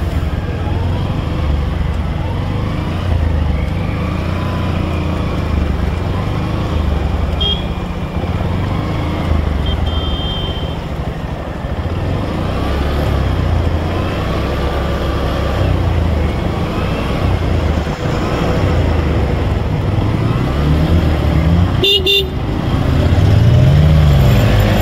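Motorcycle ridden through floodwater, its engine running steadily with water washing around the wheels. A short vehicle horn toot sounds about 22 seconds in.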